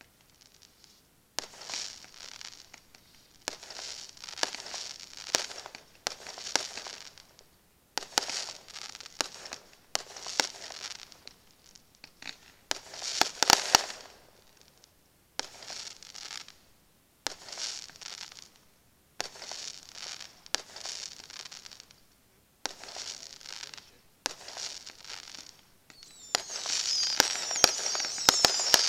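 Aerial fireworks shells bursting one after another, about every two seconds, each a sharp bang followed by about a second of crackling. The loudest burst comes about halfway through. Near the end the crackling turns dense and continuous, with many sharp pops, and grows louder.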